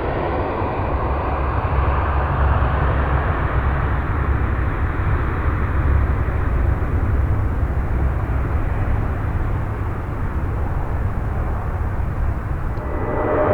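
Arriving airliner's engines passing on the landing approach: a steady rumble with a faint whine falling in pitch early on.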